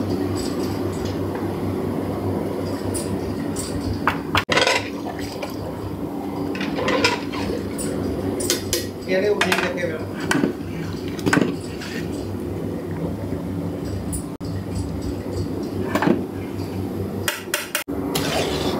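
Metal ladles and spoons clinking and scraping against aluminium cooking pots while curry is ladled out and a pan is stirred, with many short irregular clinks over a steady low hum.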